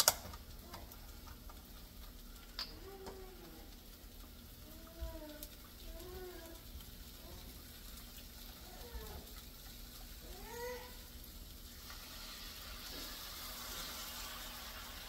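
A cat meowing several times in short rising-and-falling calls, over kielbasa slices sizzling in a skillet. The sizzle grows louder near the end.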